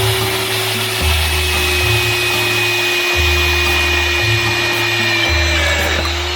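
Small 775 DC motor of a homemade disc sander running with a steady whine that dips slightly in pitch about six seconds in. Background music with a stepping bass line plays throughout.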